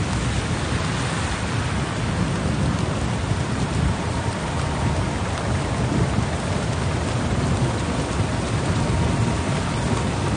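Flash-flood water rushing through a wadi: a steady, dense rush with a heavy low rumble that does not let up.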